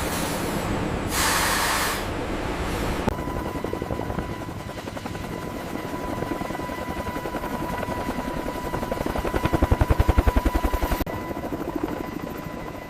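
A rushing noise with a short burst of hiss about a second in, then a machine running with a fast, even chopping pulse and a steady whine. The chopping grows louder near the end.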